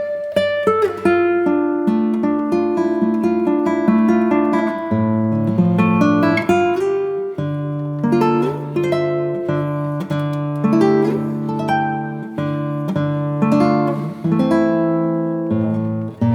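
Instrumental music played on plucked guitar: a run of picked notes, each one ringing and fading, over a held bass.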